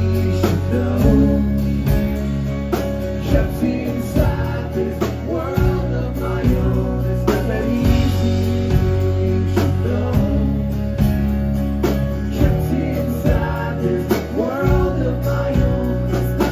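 Live band playing a song: a man singing over acoustic guitar, with heavy low notes and a steady beat.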